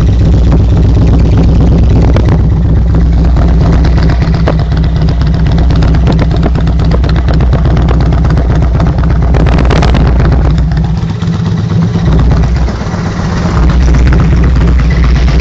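Harley-Davidson Road King's V-twin running through a modified Screaming Eagle exhaust, idling with a deep, pulsing rumble. About two-thirds of the way through there is a brief rev, after which the rumble dips for a moment before settling back to idle.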